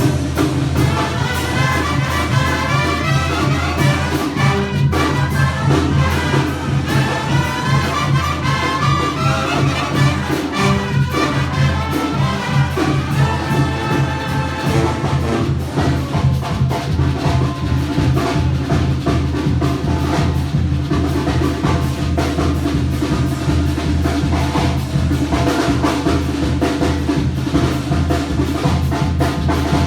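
Mexican banda brass band playing: trumpets and trombones over steady drums and percussion.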